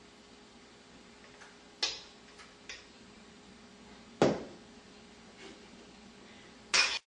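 Kitchen utensils knocking against a metal mixing bowl and pan: a few scattered clicks and knocks, the loudest about four seconds in with a short ring, and a brief clatter near the end, over a faint steady room hum.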